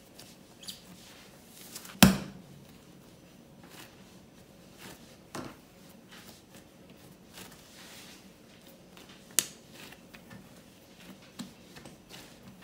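Hands pressing and folding soft yeast dough on a worktop to knock the gas out and shape it into a ball: quiet handling noise with a few sharp thumps, the loudest about two seconds in and another about nine seconds in.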